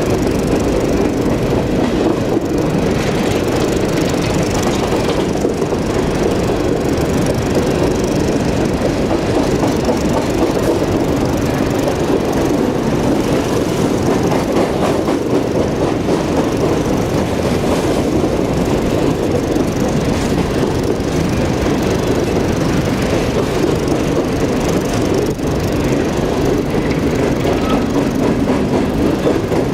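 Freight train of empty coal cars rolling past: a steady, unbroken rumble and clatter of steel wheels on the rails.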